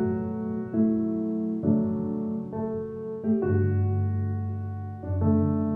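Soft piano music: a slow run of sustained chords, a new chord struck about once a second.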